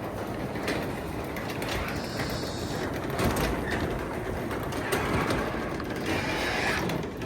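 Sectional garage door closing under a Craftsman 3/4 hp belt-drive opener: a steady rolling rattle of the door travelling down its tracks, with irregular clicks and knocks.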